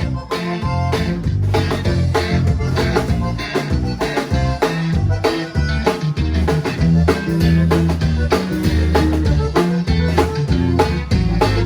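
Live conjunto band playing an instrumental passage, with plucked strings and bass over a steady drum-kit beat.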